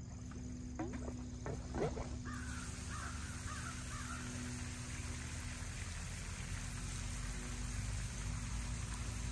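A 1.5 hp electric sump pump runs with a steady low hum. About two seconds in, water begins to rush from the end of its 3/4-inch PVC discharge pipe as a steady hiss. A bird calls a few times in the first two seconds.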